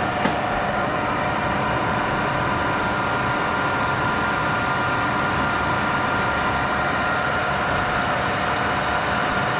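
Metal lathe running steadily, its spinning chuck giving a constant mechanical noise with a faint steady whine. A single short click comes just after the start.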